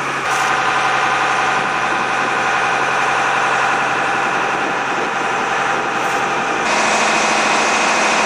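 A boat's inboard engine running steadily under way, heard from the deck. Its tone shifts a little about a second and a half before the end.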